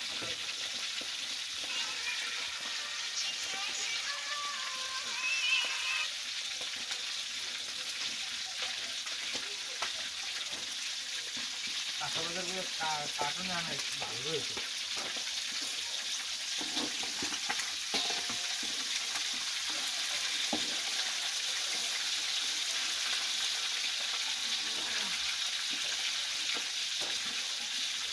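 Steady sizzling of food frying in oil in a wok over a wood-fired clay stove, with a metal spatula stirring curry in a large aluminium pot. Faint voices come in briefly twice.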